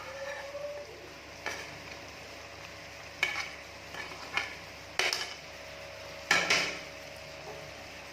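Chicken pieces and button mushrooms sizzling in a pan over a low flame. A utensil stirs them, scraping against the pan in about six separate strokes.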